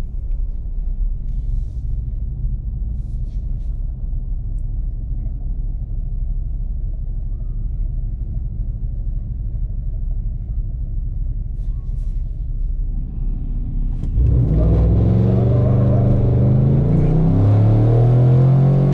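A 2018 Chevrolet Silverado 1500's gas engine with true dual exhaust, heard from inside the cab, idling with a steady low rumble. About 14 seconds in it gets much louder and pulls under load, its pitch climbing and stepping as the truck accelerates.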